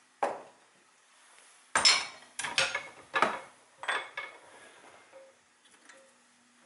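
Metal tools or parts clinking and clattering on a workbench: a single knock just after the start, then a quick run of sharp metallic clanks between about two and four seconds in.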